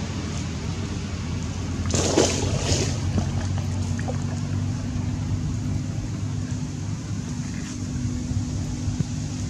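Steady low engine drone, with a short rush of splashing water about two seconds in as long-tailed macaques swim in the pond.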